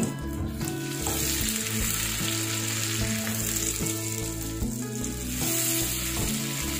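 Chopped onion sizzling as it fries in hot oil and butter with cumin seeds, stirred with a spatula toward the end. Soft background music with steady notes runs underneath.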